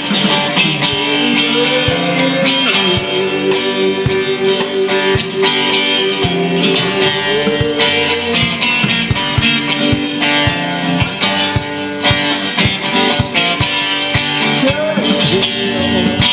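Rock song instrumental passage without vocals: strummed guitars, a long held lead note that slides up and sustains for several seconds, over a steady beat.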